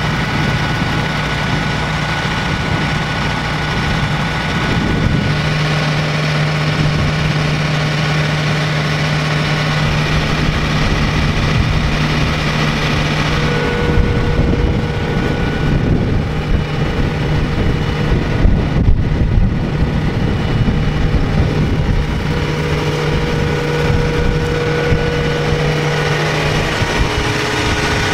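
Diesel engine of a John Deere 8600i self-propelled forage harvester running steadily, a low even hum that shifts slightly a few times and grows a little rougher about halfway through.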